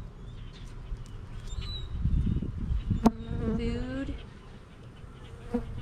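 Honeybees buzzing around an opened hive. About three seconds in there is a sharp click, then a louder, wavering buzz for about a second as a bee passes close.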